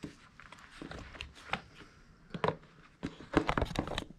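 Tin snips cutting and working the thick plastic rear under-fender of a dirt bike: scattered sharp clicks and snaps, coming closer together near the end.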